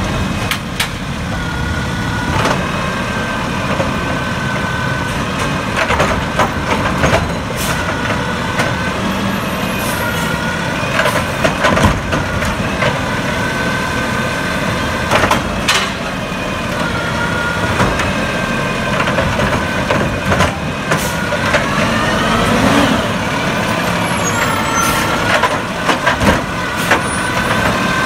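Scorpion automated side-loader garbage truck emptying wheeled carts: the engine and hydraulic arm run with an on-and-off whine as the grabber lifts, tips and lowers each cart, with repeated knocks and bangs from the carts. The engine revs up once about two-thirds of the way through.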